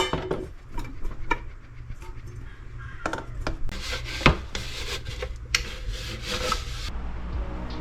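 Rubbing and scraping handling noises with scattered clicks and knocks.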